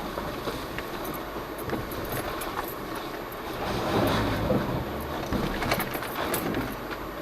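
Jeep Cherokee Trailhawk crawling over a rough off-road trail, heard from inside the cab: steady vehicle rumble with scattered knocks and rattles. It gets louder about four seconds in, then eases off.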